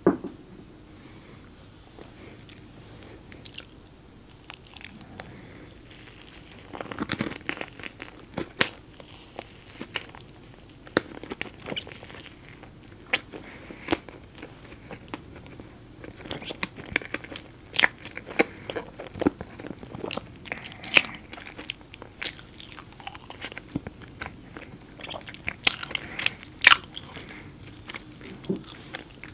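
Close-miked eating: a person chewing chocolate cake with M&M's and whipped cream, with sharp crunches scattered through. The crunches come more often and louder from about a quarter of the way in.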